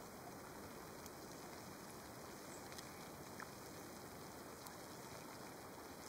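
Wood campfire crackling faintly: a few soft, scattered pops over a steady low hiss.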